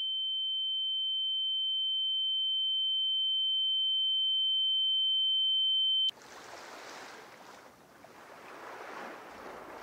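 A single steady high-pitched tone, pure like a sine wave, slowly growing louder for about six seconds, then cutting off suddenly. It is the ringing of tinnitus. After it comes a soft, even rushing hiss.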